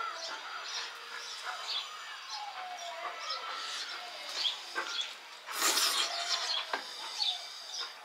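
Birds chirping over and over, short high chirps mixed with lower sliding whistles, and a brief louder rush of noise about five and a half seconds in.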